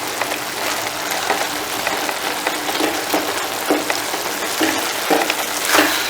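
Paneer bhurji sizzling in a pan over a gas flame, with a spatula stirring it and scraping and knocking against the pan every half second or so, more often in the second half.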